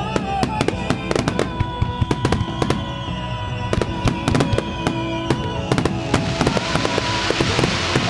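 Fireworks display: a rapid run of bangs over music from loudspeakers, with a hissing crackle that swells from about six seconds in.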